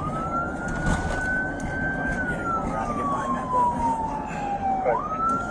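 Police car siren on a slow wail: the tone rises and holds, then glides down over about three seconds and sweeps quickly back up near the end. Steady road noise runs underneath.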